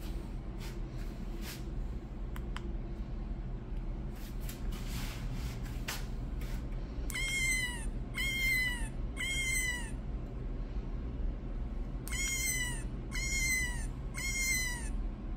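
Electronic meow from a black-cat bike light's built-in speaker: two runs of three identical short meows falling in pitch, about a second apart, the second run coming some five seconds after the first. A few handling clicks come before them.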